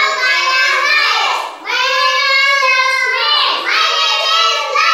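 Children singing in Marathi, their high voices holding long notes, with a brief break about a second and a half in.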